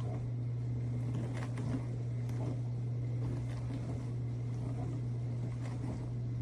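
A steady low hum from a motor or machine, with a few faint clicks over it.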